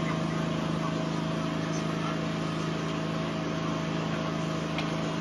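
A steady low droning hum, like a motor running, with a fainter higher tone above it and a wash of noise; it does not change.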